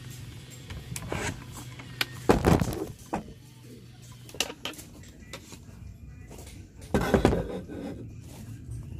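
Scattered knocks, clicks and clatter of objects being handled, with two louder rustling, clattering bursts about two and a half seconds in and near seven seconds, over a low steady hum that fades out about four seconds in.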